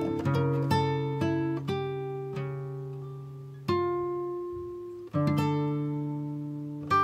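Background music: plucked acoustic guitar notes that ring out and fade, with fresh chords struck about three and a half and five seconds in.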